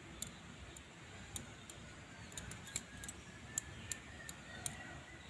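Faint, sharp clicks at irregular intervals, about two a second, as hands roll chhena dough into small balls between ghee-greased palms.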